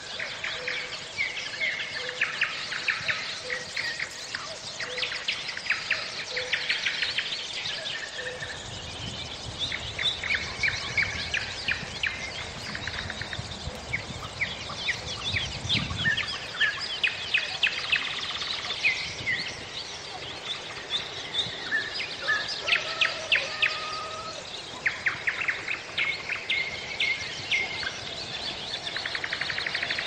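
Several songbirds singing, overlapping runs of rapid trills and short chirps. A low rumble swells and fades around the middle.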